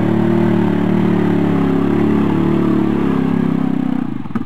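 ATV engine running hard under load while its wheels spin and throw mud as it is dragged out of a gully, then dropping back about four seconds in to a slow, evenly pulsing low-rev putter.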